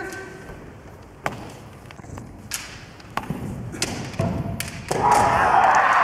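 Kendo bout on a wooden gym floor: a short shout at the start, then several sharp knocks from stamping bare feet and bamboo shinai. About five seconds in, a sudden loud burst of kiai shouting and applause begins and keeps going.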